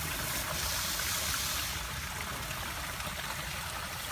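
Water from a backyard rock waterfall running and splashing into its stream, a steady rush of moving water.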